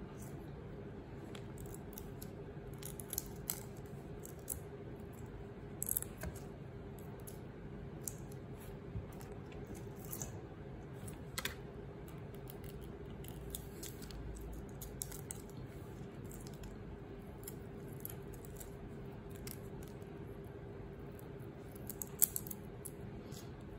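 Shrimp being peeled by hand: small, irregular clicks and crackles of shells being pulled off, over a steady low hum.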